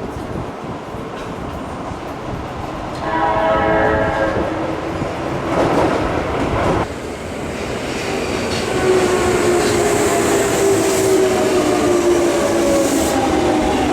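A subway train arriving: its horn sounds about three seconds in, then the electric train's motor whine falls slowly in pitch as it brakes, over steady wheel and rail rumble.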